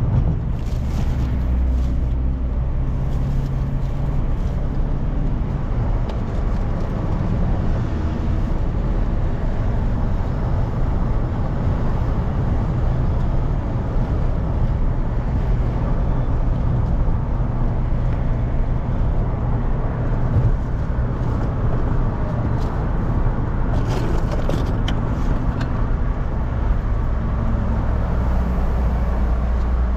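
A car's engine humming steadily with tyre and road noise, heard from inside the cabin while driving. A few brief clicks come late on.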